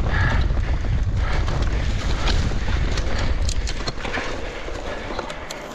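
Wind buffeting the microphone on a moving electric mountain bike, a deep steady rumble with scattered clicks and rattles from the bike over the ground. The rumble eases over the last second or two.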